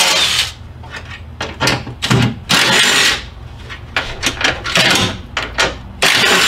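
Repeated short bursts of scraping, rattling noise with sharp clicks and knocks between them: work noise of unbolting and pulling off a front fender and its plastic inner fender liner.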